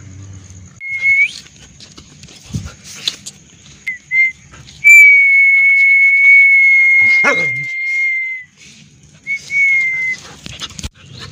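A person whistling to call dogs. First a short whistle that slides up, then two quick chirps, one long steady whistle of about three and a half seconds, and a short whistle near the end. Partway through the long whistle a dog gives a brief yelp that falls in pitch.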